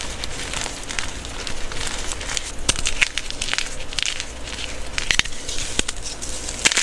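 Blocks of gym chalk crushed and crumbled by hand into powder: a dense run of dry crackles and crunches, with a few sharper snaps as pieces break.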